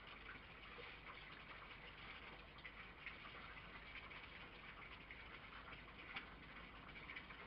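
Near silence: a faint steady hiss with scattered light ticks, one a little stronger about six seconds in.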